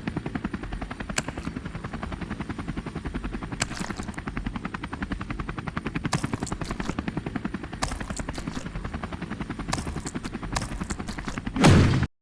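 Fast, even mechanical pulsing, like a helicopter rotor, with sharp clicks scattered over it; it swells into a brief louder rush near the end and then cuts off suddenly.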